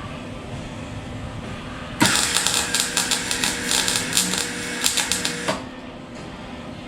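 Welder arc crackling in a rapid, steady sizzle while welding on a broken exhaust manifold stud in the cylinder head; it starts sharply about two seconds in and cuts off about three and a half seconds later.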